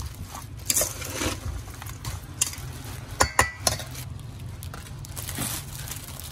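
A metal spoon tossing seasoned cut fruit in a stainless steel bowl, with scattered clinks and scrapes against the bowl and a cluster of sharp clinks about three seconds in. A thin plastic bag rustles as it is opened, over a steady low hum.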